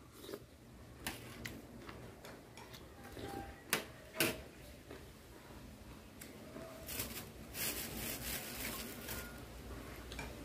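A person chewing boiled beef tendon, with a few sharp mouth clicks and smacks in the first half. Between about seven and nine seconds in there is a dry rustle as leafy greens are picked up.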